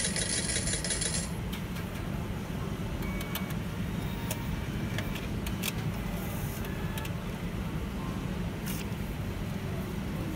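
Steady low hum of a gaming hall's machines. For about the first second a dense, high buzz comes from the slot machine as it cashes out, followed later by a few faint electronic beeps and clicks.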